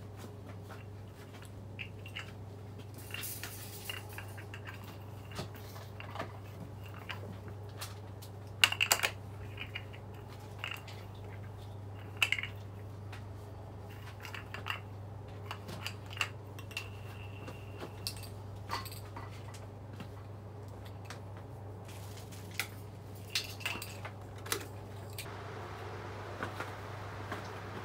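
A steady low hum with scattered light clicks and clinks, the loudest about nine and twelve seconds in, and a soft hiss that comes up near the end.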